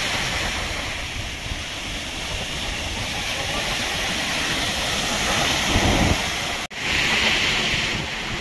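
Sea surf breaking and washing up a sandy beach, a steady rushing hiss, with wind buffeting the microphone in a low rumble about six seconds in. The sound drops out for an instant soon after, then the rush carries on.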